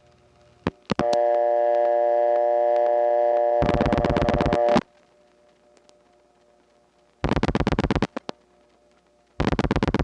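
Telephone line in a 1979 step-by-step (Strowger) central office: a couple of clicks, then a steady multi-pitched dial tone, broken after a few seconds by a fast train of rotary dial pulses that ends the tone. Two more digits follow as quick trains of dial-pulse clicks.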